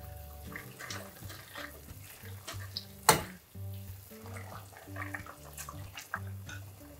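Food stir-frying in a frying pan, with a spatula and tongs clicking and scraping against the pan and one sharp clank about three seconds in, over soft background music.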